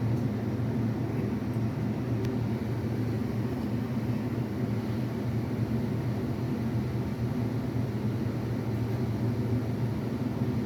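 Steady low mechanical hum with a rushing noise, even in level and unchanging throughout.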